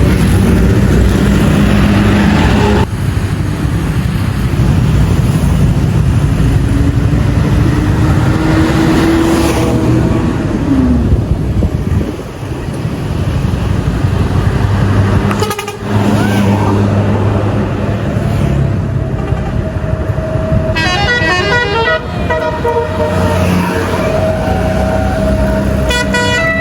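Tour buses running past with a steady engine rumble, sounding telolet 'basuri' musical horns: held horn notes at the start, then a quick warbling run of alternating horn notes about two-thirds of the way through and again at the end.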